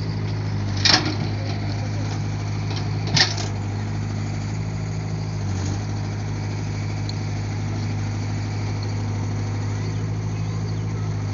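Excavator engine running at a steady pitch, with two sharp clanks, one about a second in and one about three seconds in.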